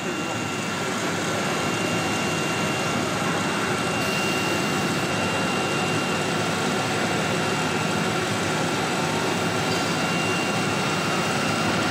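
Three-spindle CNC router with air-cooled spindles running: a steady machine noise with a constant high whine. Near the end a second whine rises in pitch.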